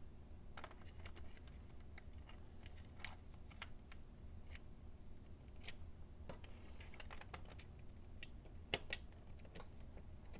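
Faint, scattered clicks and taps of small plastic model-locomotive parts being handled and fitted, with a small screwdriver turning a screw into the plastic truck near the end, over a steady low hum.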